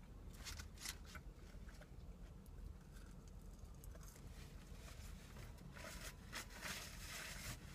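Faint crinkling and rustling of a paper food wrapper being handled, in a few short strokes near the start and a longer bout near the end, over a low steady hum.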